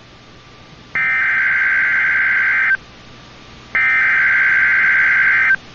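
Emergency Alert System SAME header data bursts off weather radio: the end of one burst, then two more identical buzzing bursts, each just under two seconds long with about a second of gap between them, the coded header that opens a new alert.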